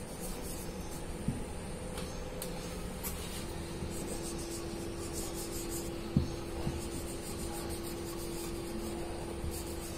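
Faint scratching of a whiteboard marker writing on a whiteboard, over a steady low hum, with a couple of light taps.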